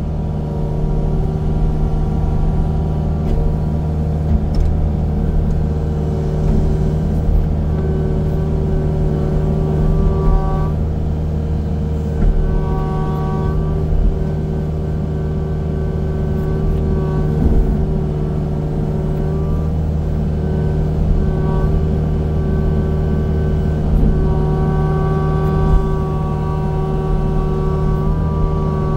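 Diesel engine of a steel-tracked land-clearing machine running steadily under work, with a higher whine that comes and goes every few seconds.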